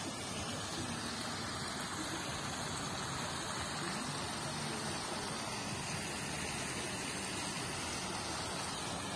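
Large tiered park fountain, its many jets splashing into the wide basin: a steady rush of falling water.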